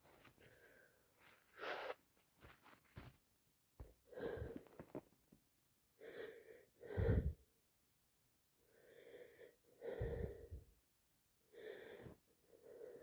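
A woman with a heavy head cold making a string of short, wheezy breaths, gasps and sniffles, about eight in all. The strongest are the sneezes about seven and about ten seconds in.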